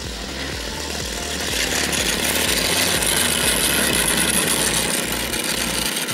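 The DLE 60cc twin petrol engine of a large RC Extra 330 running as the plane taxis past, growing louder for a few seconds and then fading near the end.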